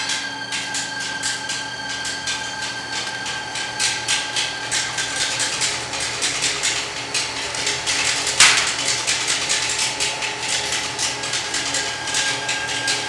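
Tee bar roll forming machine running: a steady whine under rapid, continuous clicking of the machinery as the metal strip feeds through, with one loud, sharp metallic bang about eight seconds in.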